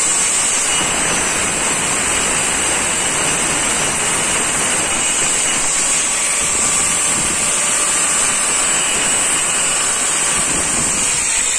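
Handheld angle grinder with a thin cutting disc running steadily through a grey stone slab: a continuous high whine over a grinding hiss.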